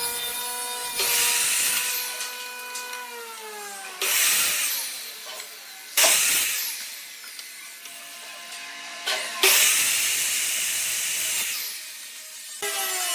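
Ryobi sliding compound miter saw running, its blade cutting through pine boards four times in quick succession. Between cuts the motor whine slides down in pitch as the blade spins down, and it spins up again near the end.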